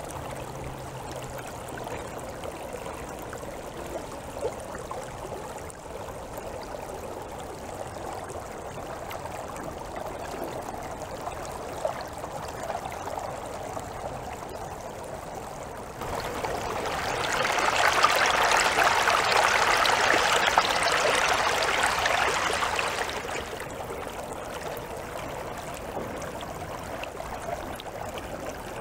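River water flowing and rushing in a steady wash, turning abruptly louder and hissier for about seven seconds past the middle before settling back.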